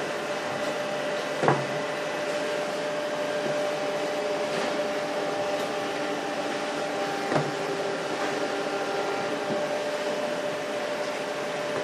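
Baguette bread processing machine running with a steady motor hum, with a sharp knock about a second and a half in and another about seven seconds in.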